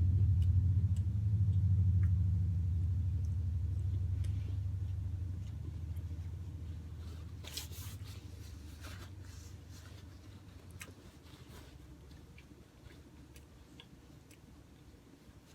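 A low rumble, loudest at the start and fading away over about ten seconds. Over it come scattered soft clicks of eating and a short crunchy patch about halfway through.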